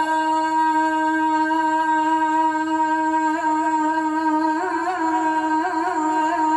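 A man's voice chanting the Islamic sela through a PA system, holding one long, steady note with a few small ornamented turns in the second half.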